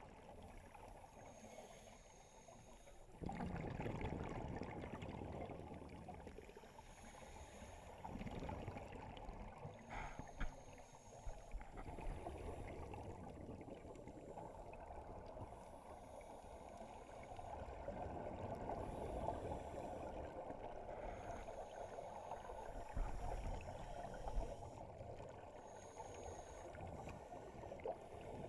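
Muffled underwater bubbling and rushing from scuba divers' exhaled regulator bubbles, swelling in surges a few seconds apart.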